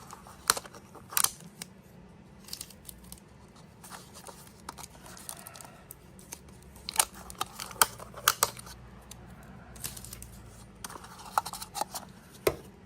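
Irregular light clicks and taps of small metal ratchet parts and tools being handled on a workbench, a few sharper knocks among them.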